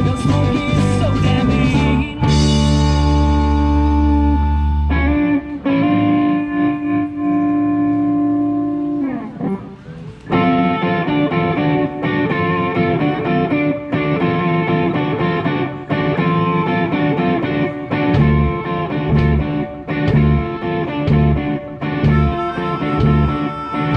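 Live blues-rock band with electric guitars, bass and drums. Long held chords ring out for the first several seconds, the sound thins out briefly just before ten seconds in, and then the full band comes back in with a steady beat.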